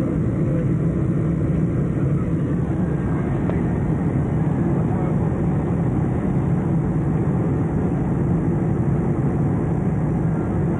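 Steady low drone of a jet airliner in flight, heard from inside the passenger cabin: engine and airflow noise.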